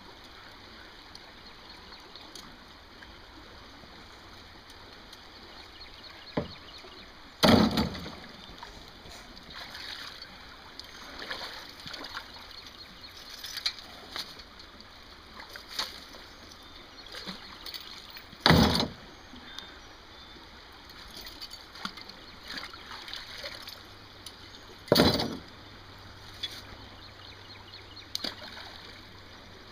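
Creek water sloshing and splashing as steel traps are swished to rinse off the mud, with three loud knocks several seconds apart.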